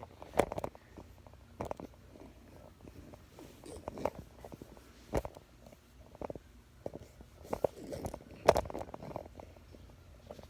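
Camera handling noise: irregular knocks and rubbing against the microphone as the camera is moved and repositioned. The loudest knock comes about eight and a half seconds in.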